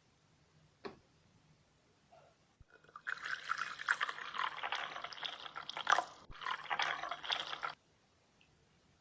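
Water running from a toy kitchen set's tap into its sink for about five seconds, splashing, then stopping suddenly. There is a single click about a second in.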